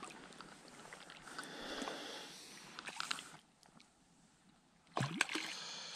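Close crackling and rustling handling noise with small clicks, dropping quiet for a moment, then a sharp knock about five seconds in followed by more clicks.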